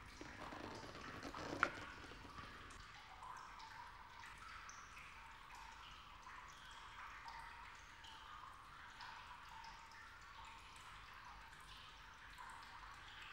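Faint water dripping, many small scattered drips. A soft rustle in the first couple of seconds, with one sharp click about one and a half seconds in.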